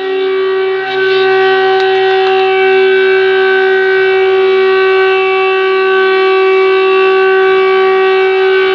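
Volunteer fire station siren sounding one long, loud tone at a steady pitch, the alarm that calls out volunteer firefighters.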